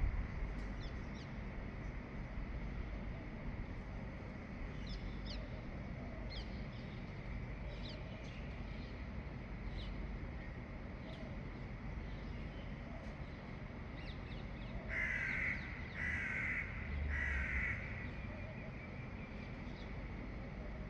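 Birds at dawn: scattered short chirps, then three loud calls in quick succession near the end, over a steady background hum.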